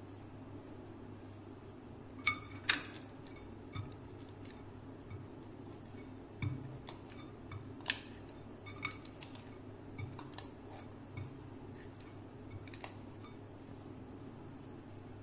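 Stainless-steel bowl pressed and rocked on whole coriander seeds on a granite countertop, cracking them open: irregular sharp clicks and taps of metal and seed on stone, the loudest two close together about two and a half seconds in, over a steady low hum.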